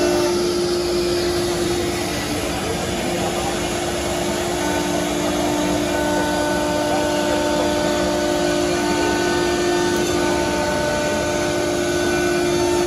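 ALCA 2030-3S CNC router running with a steady spindle whine over the rushing air of its dust extraction. A few fainter higher tones come and go while the gantry moves.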